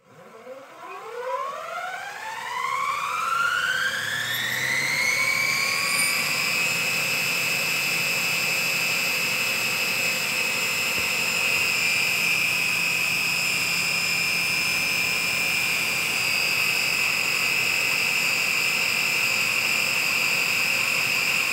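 Brushless outrunner mid-drive motor spinning the scooter's unloaded rear wheel through an HTD toothed belt, fed about 60 volts from a bench supply. Its whine rises in pitch over the first five or six seconds as throttle comes up, then holds steady at full speed.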